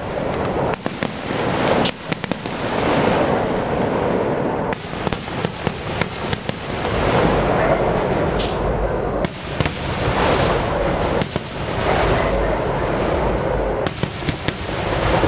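Aerial fireworks display: a dense, continuous barrage of shell bursts with many sharp cracks and bangs.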